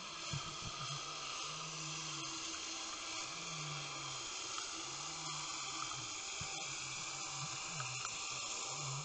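Underwater noise picked up by a submerged camera: a steady hiss with a few faint clicks, and under it a low hum that rises and falls in pitch about every second and a half.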